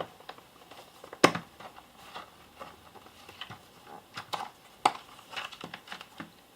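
Small items being handled and rummaged through on a workbench, heat-shrink tubing among them: irregular light clicks and knocks, the sharpest about a second in and again near five seconds in.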